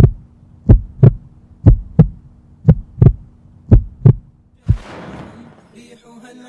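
Heartbeat sound effect: double thumps about once a second over a low steady hum, stopping about four and a half seconds in. A swelling whoosh of noise follows, and music comes in near the end.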